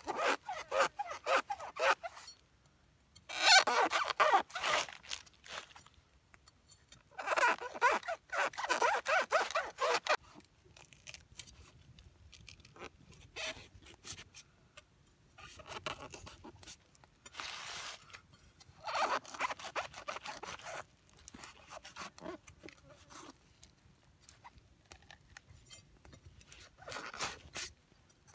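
A machete blade sawing and scraping into the husk of a green coconut to cut a ring around its top. It comes in bursts of rapid rasping strokes with short pauses between them, loudest in the first ten seconds and fainter later.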